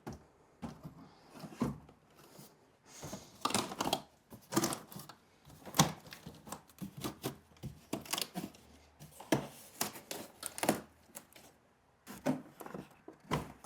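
Cardboard shelving units knocked, scraped and bumped as they are lifted and stacked on top of one another: a string of irregular dull knocks and scuffs.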